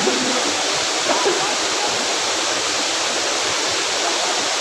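Waterfall rushing: a steady, dense roar of falling water with no let-up.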